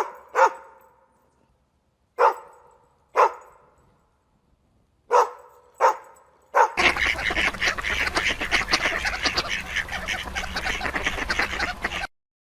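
Animal calls: six short, sharp calls with an echoing tail, then, about seven seconds in, a sudden switch to a dense, continuous clamour that cuts off abruptly shortly before the end.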